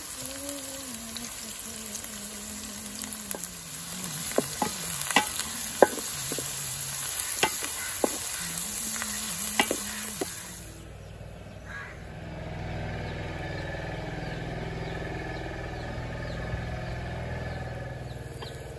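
Sliced onions sizzling as they fry in hot oil in a metal pot, with sharp knocks of a wooden spatula stirring them against the pot. About ten seconds in the sizzle cuts off and a steady, lower background hum takes over.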